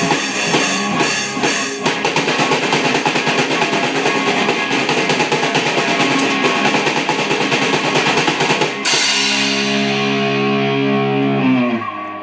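A child drumming on a First Act drum kit along with rock music with guitar. About nine seconds in, a final crash gives way to a held chord that rings for nearly three seconds and then stops: the end of the song.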